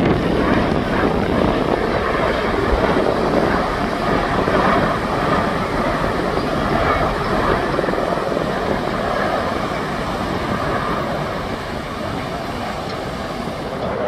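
V-22 Osprey tiltrotor flying overhead, its proprotors and engines making a steady thrumming drone that eases off a little near the end.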